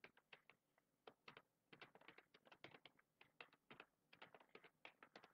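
Faint computer keyboard typing: a quick, uneven run of key clicks.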